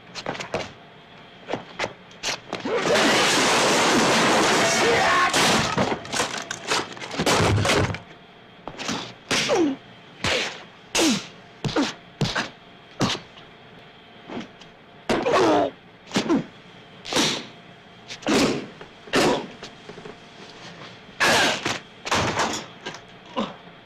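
Foley impact effects for an action sequence: a long crash of breaking and rattling about three seconds in, then a run of separate thuds, whacks and slams, roughly one a second.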